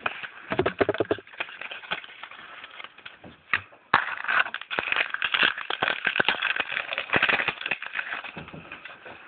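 Foil trading-card pack wrapper crinkling and being torn open, with cards handled and shuffled. The crinkling gets suddenly louder about four seconds in.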